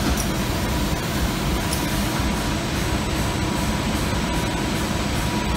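Artificial turf backing coating line running: a steady mechanical hum and rush from the rollers and drives, with a thin steady whine above it.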